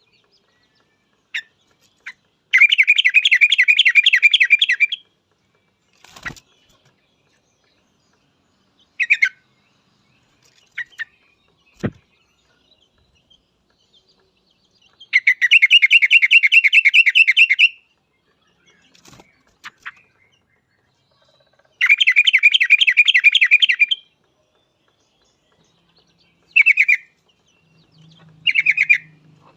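Yellow-vented bulbul (trucuk) singing: three long bursts of rapid bubbling chatter, each about two and a half seconds, with short single calls between them. Two brief soft knocks come about six and twelve seconds in.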